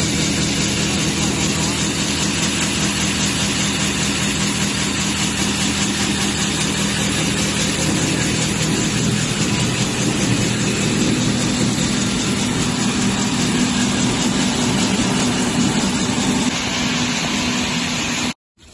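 Coconut and palm fiber cutting machine running: a loud, steady mechanical hum and rush from its motor, rotary blades and blower fan. The low hum rises slightly about halfway through, and the sound cuts off suddenly near the end.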